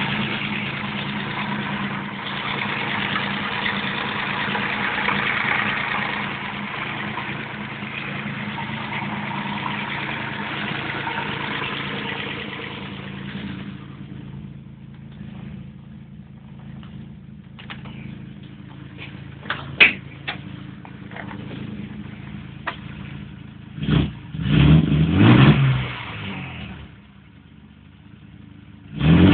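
Freshly rebuilt Mazda KLZE 2.5-litre V6 running on its first start after the rebuild: a loud, busy high idle for about the first half, then it settles to a quieter, steady idle. Near the end it is blipped several times, revving up and falling back.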